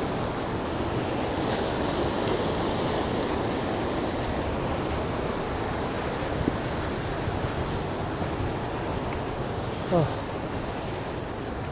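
Small waterfall splashing and rushing steadily. About ten seconds in, a short sliding tone drops quickly in pitch over the water.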